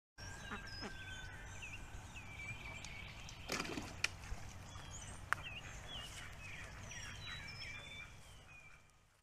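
Birds chirping and calling over a low steady rumble, with a few sharp clicks, two of them loudest about four and five seconds in; the sound fades out near the end.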